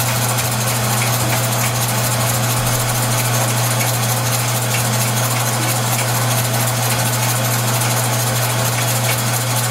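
Jet metal lathe running steadily under power, with a constant hum, driven by three zip ties standing in for its thin drive belt while it turns a piece of brass.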